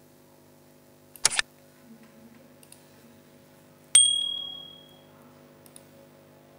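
Subscribe-button animation sound effects: a short click about a second in, then a sharp, bright ding about four seconds in that rings out over about a second. A faint steady hum runs underneath.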